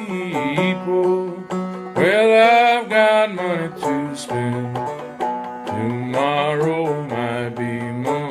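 Background music: an old-time country song with plucked-string accompaniment and a singing voice.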